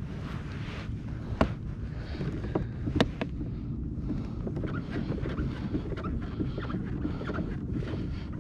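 Wind buffeting the microphone over water lapping at a plastic kayak hull, with a few sharp knocks, the loudest about a second and a half and three seconds in.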